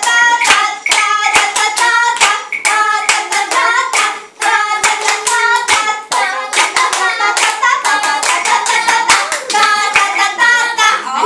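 Women singing with quick hand claps, several claps a second, going on under the sung melody.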